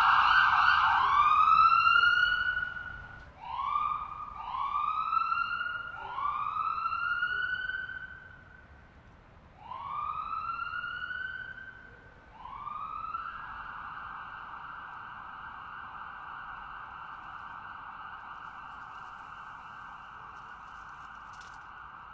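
Distant ambulance siren. It starts as a steady loud tone, then turns into about six rising swoops a second or more apart. From about halfway it changes to a steady held tone that slowly fades.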